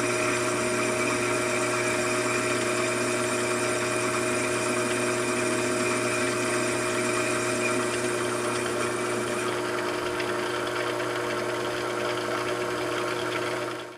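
A machine tool running steadily: a constant motor-and-gearing hum with several steady tones over a mechanical hiss.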